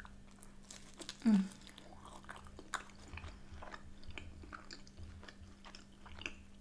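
A person chewing a mouthful of pizza crust dipped in a creamy dip, with many small wet clicks and smacks of the mouth. About a second in there is a brief hummed voice sound that falls in pitch.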